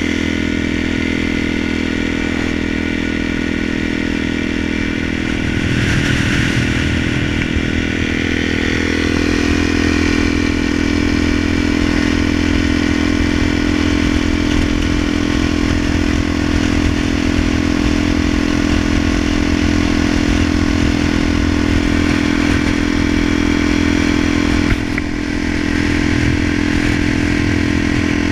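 Dual-sport motorcycle engine running steadily at cruising speed, getting louder about six seconds in, with a short click and a brief dip in level near the end.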